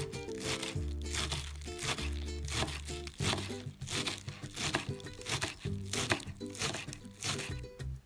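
Kitchen knife chopping green onions on a wooden cutting board: a steady run of crisp, crunchy cuts, about two to three a second. Background music plays under it.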